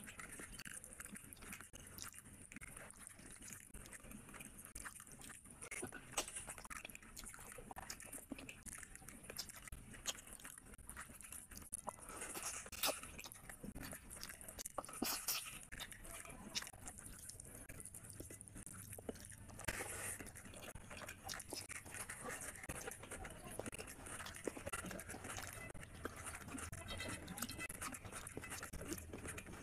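Close-miked eating of a curried fish head by hand: wet chewing, lip smacking and small crunches, with scattered clicks and crackles as fingers pull the head apart, a little busier around the middle.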